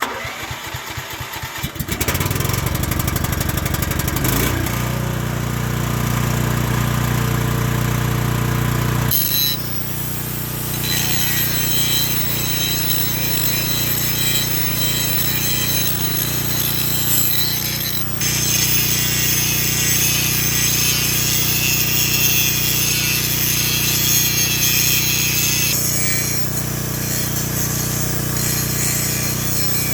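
An angle grinder runs up to speed, then from about nine seconds in grinds steel with a steady high hiss. There are a few short easings of pressure, preparing the metal for welding on the excavator thumb.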